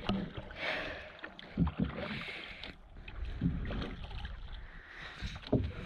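Canoe being paddled: paddle strokes swish and drip water about every two seconds, with low thumps in between.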